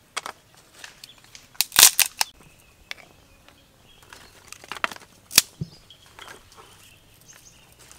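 Dry sticks and kindling cracking and knocking as they are laid on a small wood fire. A few sharp snaps stand apart, the loudest cluster about two seconds in.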